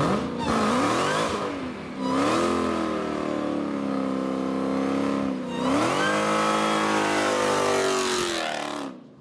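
Car engine accelerating hard, its pitch climbing and dipping at two gear changes, then fading away near the end.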